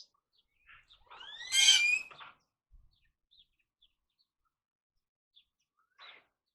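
Birds chirping in short scattered calls, with one much louder call of several rising sweeps about a second in.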